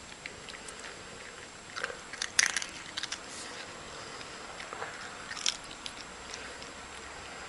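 A cat chewing and crunching food, a string of crisp little crunches and clicks, loudest in a cluster about two to three seconds in and again about five and a half seconds in.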